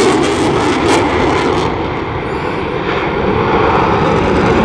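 Eurofighter Typhoon FGR4 jet, its two Eurojet EJ200 turbofans giving a loud, steady jet noise as it flies its display. The noise dips slightly about two seconds in and builds again toward the end.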